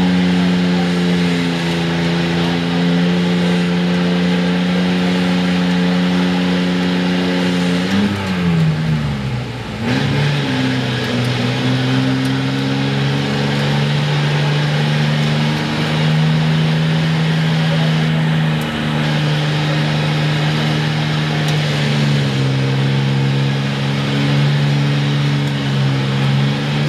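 Ford short-bed pickup's six-cylinder engine held at high, steady revs while the truck strains in deep mud. About eight seconds in the revs drop sharply and climb back, then hold steady again at a slightly lower pitch.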